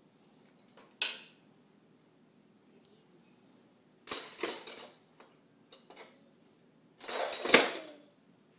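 Handfuls of metal silverware clattering into a drawer's wooden cutlery tray: a short clatter about a second in, a longer one about four seconds in, and the loudest about seven seconds in.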